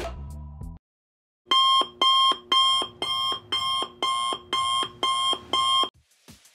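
Electronic alarm beeping: nine short pitched beeps, about two a second, starting after the music cuts out about a second in. The beeping stops shortly before the end.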